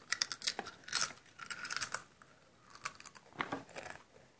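Plastic chip bag crinkling and crackling as it is handled, in about five short bursts.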